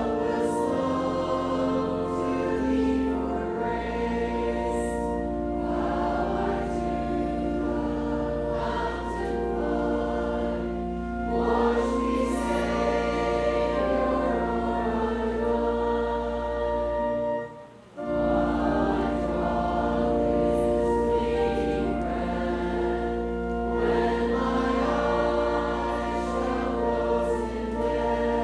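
Church congregation singing a hymn together with instrumental accompaniment, held notes and steady verse singing, with a brief break about two-thirds of the way through.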